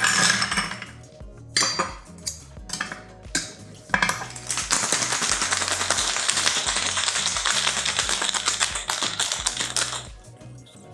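A few clinks and knocks as a metal shaker tin is seated on its cut-glass mixing glass, then, about four seconds in, ice rattling rapidly in the sealed Boston shaker for a quick shake of about six seconds, kept short to chill the cocktail with little dilution.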